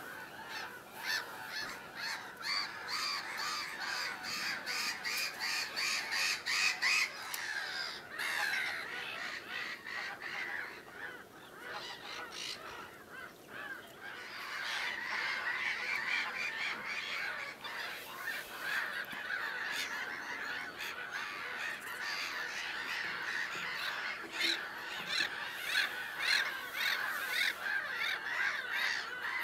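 A continuous chorus of waterbirds calling, geese among them, with many short calls overlapping. It thins briefly about halfway through, then builds again.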